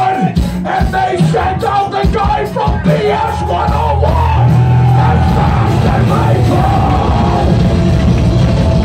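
Live punk rock band playing loud, with yelled vocals over the drums. About three seconds in, the drum strokes stop and a sustained low chord rings on with a held note above it.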